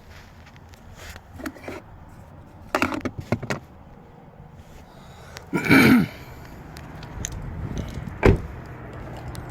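Handling noises on a car: a few clicks and rattles, a loud short creak about halfway through, and a single sharp thump near the end.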